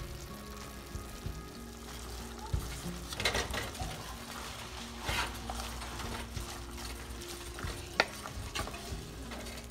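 Wooden spoon stirring and scraping a thick paste and vegetables in a clay pot, with scraping bursts about three and five seconds in and a single sharp knock near the end.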